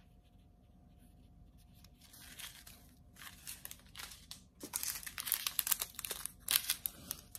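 Small clear plastic bags of diamond-painting resin drills crinkling as they are handled, starting about two seconds in and getting louder and busier over the last few seconds.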